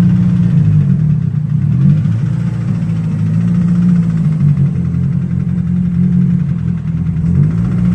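Turbocharged Nissan S13 engine idling steadily, its pitch wavering slightly up and down.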